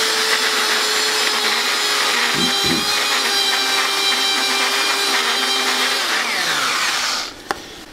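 Electric belt sander running steadily at speed, sanding down the high spots of a painted concrete floor. It winds down with a falling whine and stops about seven seconds in.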